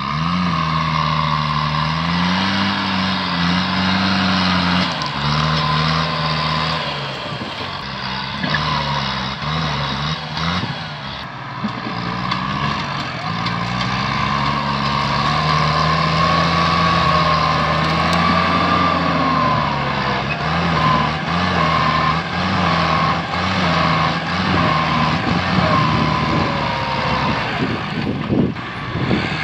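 Kubota tractor's diesel engine working under load as the tractor pushes over brush and small trees. The engine pitch sags and recovers again and again, with a high whine over it.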